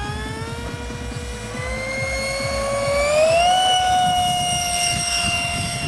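Electric ducted fan of a TRS-2 RC jet whining on its takeoff roll, at full power for takeoff. The pitch climbs steadily for about three and a half seconds, then holds level.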